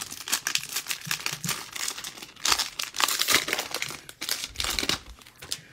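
Foil wrapper of a 2022 Panini Mosaic Baseball hobby pack being torn open and crinkled by gloved hands: a dense run of crackling, loudest about halfway through and dying away shortly before the end.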